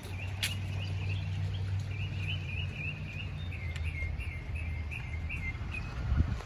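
A small animal chirping: a rapid series of short high chirps that stops about five and a half seconds in, over a low rumble, with a single thump about six seconds in.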